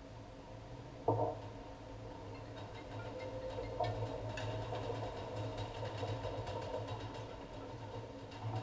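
Automated parking system's lift and carrier machinery running: a clunk about a second in, then a steady electric-motor hum as the platform moves.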